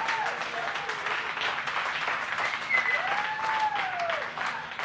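A room full of people clapping and cheering. A short whoop comes right at the start and a long rising-and-falling cheering shout about three seconds in.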